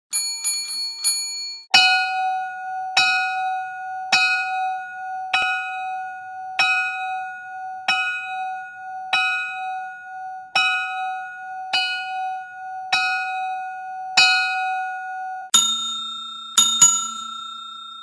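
A run of bell dings. First four quick light rings. Then a bell struck eleven times about a second apart, its tone ringing on between strikes. Then a different, lower-toned bell struck once and then twice in quick succession, left to ring out.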